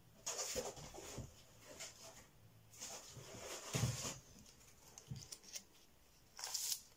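Soft rustling of knitted fabric, yarn and metal needles being handled on a table, in a few short bursts.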